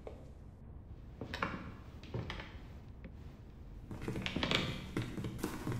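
Scattered soft knocks and thuds of people moving on a stage floor and climbing onto a wooden prop, over a low steady hum. The knocks come closer together in the last couple of seconds as more people walk on.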